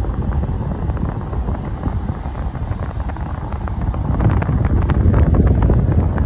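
Wind buffeting the microphone over the road rumble of a moving taxi, swelling louder about four seconds in.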